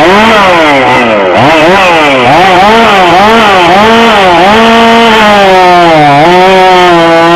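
Two-stroke chainsaw in a timed log-cutting run: the engine is revved up and down about twice a second. About halfway through, it is held at a steadier pitch as it cuts through the log, sagging under the load.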